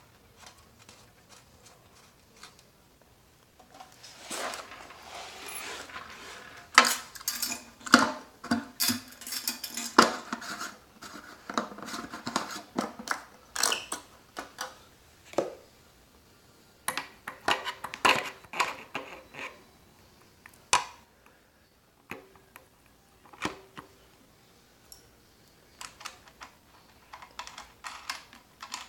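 Hands handling small-engine parts: a run of clicks, knocks and clatter of plastic and metal pieces, with some scraping. It is busiest in the first two-thirds and thins out to scattered taps near the end.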